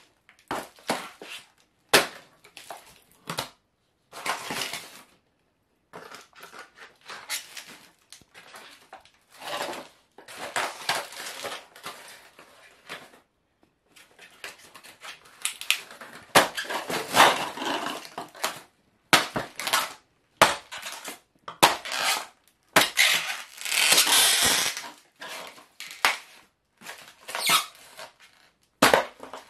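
Foam-and-plastic radio-controlled model aeroplane being crushed underfoot by high-heeled shoes, making irregular crunching and cracking. The crackling thickens into longer grinding stretches a little past halfway and again at about four-fifths through.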